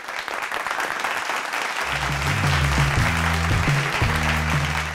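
Studio audience applauding, with a short bass-heavy musical jingle coming in about two seconds in and cutting off suddenly near the end.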